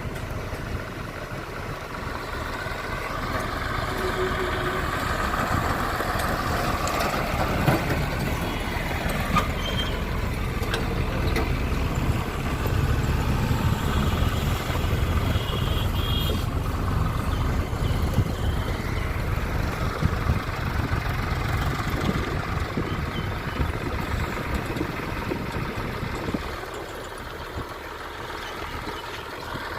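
Heavy diesel construction machinery running. The engine rumble builds over the first few seconds and eases off near the end, with a few short sharp knocks along the way.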